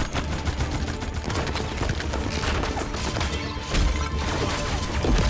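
Rapid, sustained gunfire with bullets striking, over a film score, with a heavy blast just before the end.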